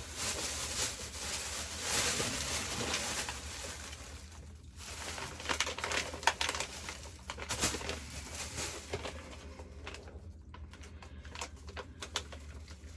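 Rustling for the first few seconds, then scattered light clicks and taps of small items being handled, over a steady low hum.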